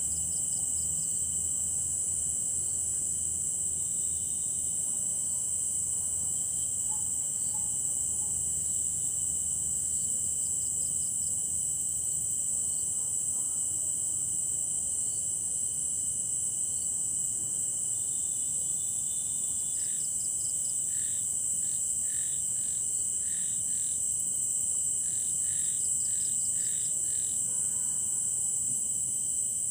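Night chorus of crickets and other insects: a steady, high-pitched trill with a second, lower steady insect tone beneath it. About two-thirds of the way in, a run of short calls repeated about twice a second joins in for several seconds.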